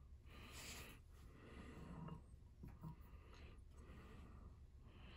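Near silence, with faint handling sounds as a degree wheel on a chainsaw engine's crankshaft is turned by hand, and a small click about three seconds in.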